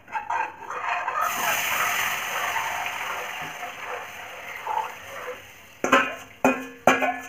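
Thin besan-and-yogurt kadhi batter poured into a hot kadhai: a hiss starts about a second in and fades over a few seconds. Near the end, a spoon knocks several times against the metal bowl, each knock ringing briefly, as the last of the batter is scraped out.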